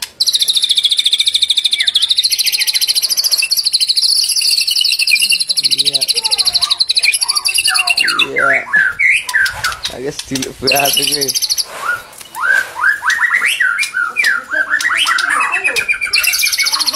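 White-rumped shama (murai batu) singing loudly. A long, very fast high-pitched trill runs through the first half. From about eight seconds in come varied whistled phrases of quickly rising and falling notes, with the trill cutting back in briefly.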